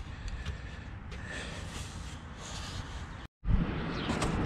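A person breathing close to the microphone, with faint airy breaths about once a second over a low steady rumble. An abrupt cut about three seconds in gives way to a louder, steady rumble.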